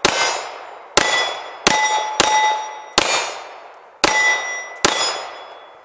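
CZ 75 SP-01 9mm pistol firing seven shots at an uneven pace, roughly one a second with a quick pair in the middle, each followed by the ringing clang of a hit steel target that fades before the next shot.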